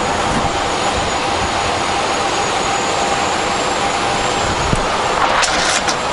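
Boeing 777-200 auxiliary power unit (APU) running steadily, heard from the cockpit as a constant rushing noise with a steady whine. A few sharp handling clicks come near the end.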